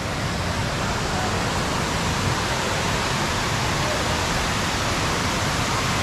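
Steady rushing of a waterfall, water cascading over rocks into a shallow stream.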